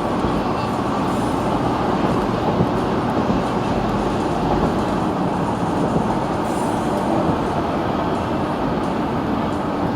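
Steady road noise heard inside a moving car's cabin: tyres rolling and the engine running, with a few faint knocks.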